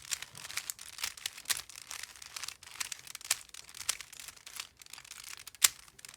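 Plastic puzzle cube being twisted by hand: its layers turn with quick, irregular clicks and rattles, several a second, with one sharper snap near the end.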